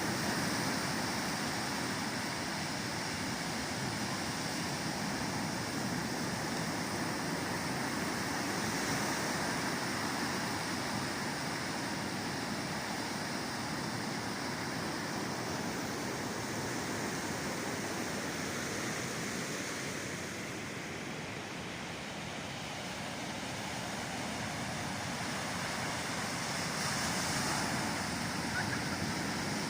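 Ocean surf: a steady wash of breaking waves that swells a little about a third of the way in and again near the end, with a slight lull between.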